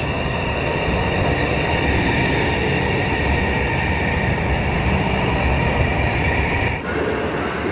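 A CR400AF Fuxing high-speed electric train running past the platform: a steady rush of wheel, rail and air noise. Near the end the sound drops for an instant and then goes on.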